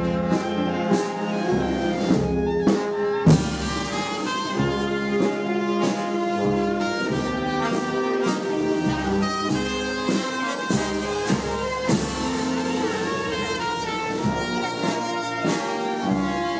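Brass band playing, with trumpets and trombones holding sustained notes over occasional drum strikes.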